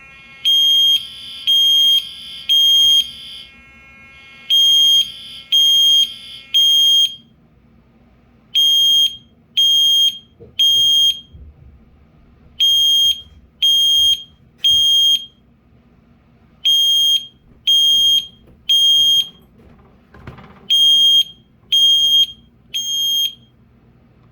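Fire alarm sounding its temporal-three evacuation signal: groups of three high-pitched beeps with a pause after each group, repeating six times. This is the standard signal of a fire alarm activation.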